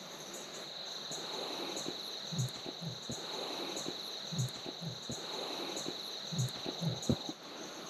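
Steady high-pitched chorus of crickets or other insects, with a short run of three dull low thuds that recurs three times about two seconds apart, the same brief recording looped.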